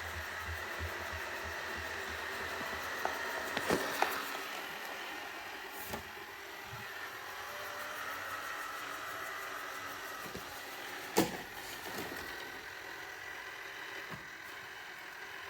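Roomba robot vacuum running with a steady motor and brush hum, with a few sharp knocks, the loudest about eleven seconds in.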